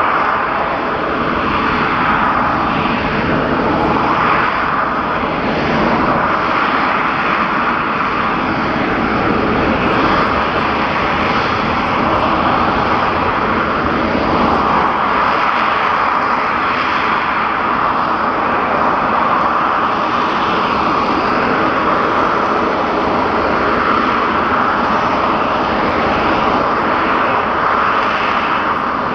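Aircraft engines running loud and steady during a flying display, the tone shifting slowly as the aircraft moves across the sky.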